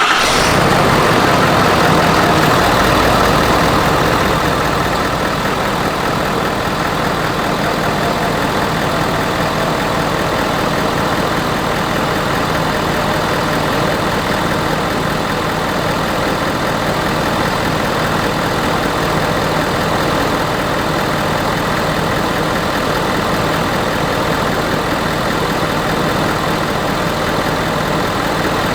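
Ford 6.7L Power Stroke V8 turbodiesel in an F-250 just started after a fresh oil change. It runs a little louder for the first few seconds, then settles into a steady idle.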